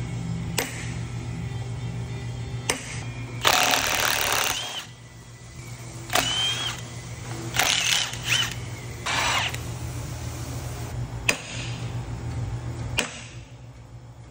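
Cordless impact wrench running in three short bursts on the end bell bolts of a large electric motor, the first and longest a little over three seconds in, each ending in a brief whine as the motor winds down. Sharp single taps of a hammer on a marking punch come before and between the bursts.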